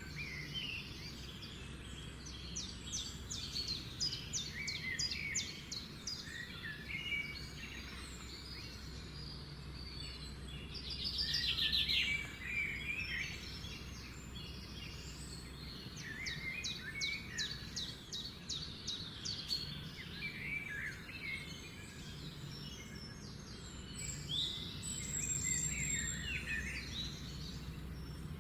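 Several garden birds singing and calling together, a mix of chirps and twittering phrases, twice breaking into a fast trill of rapidly repeated notes. Underneath runs a steady low background hum.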